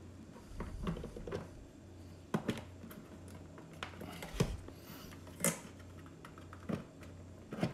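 Scattered plastic clicks, knocks and rustles as a Yeti Link expansion module is handled, plugged into its connector and pushed into the expansion bay of a Goal Zero Yeti 1000 power station's hard plastic case. A few sharper knocks stand out near the middle, over a low steady hum.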